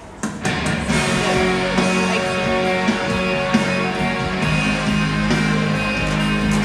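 Loud show music that comes in suddenly with a couple of hits just after the start, then plays on steadily with sustained low notes underneath.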